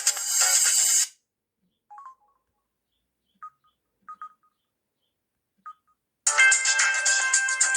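Samsung SGH-F480 ringtones playing through the phone's speaker: one ringtone cuts off about a second in, a few faint short beeps follow during the gap, and a different ringtone starts about six seconds in.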